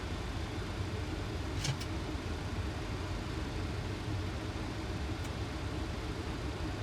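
Steady rumble of a Boeing 737's flight deck on final approach, airflow and engine noise with the gear down and landing flaps set. A brief click sounds about a second and a half in, and a fainter one later.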